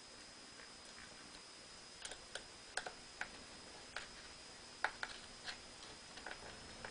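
Faint, irregular small clicks and ticks of a #00 Phillips screwdriver turning the tiny screws back into a MacBook Pro's bottom case.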